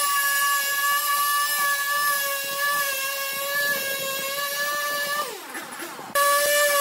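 Husqvarna two-stroke chainsaw running at high revs, ripping a log lengthwise, with a steady high whine. About five seconds in, the revs fall away and the sound drops off. Just after six seconds it comes back abruptly at full revs.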